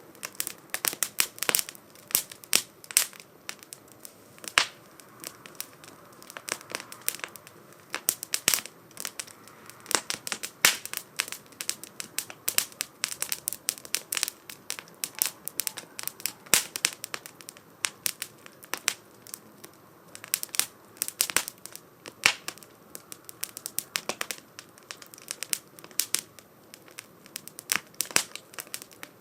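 Firewood burning in a small 2×4 STOVE fire stand, crackling with many irregular sharp pops and snaps over a faint hiss.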